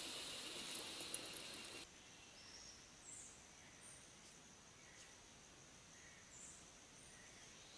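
Faint tropical forest ambience: a steady high insect drone with a few short, scattered bird chirps. For the first two seconds a louder hiss with a single click sits over it, then cuts off suddenly.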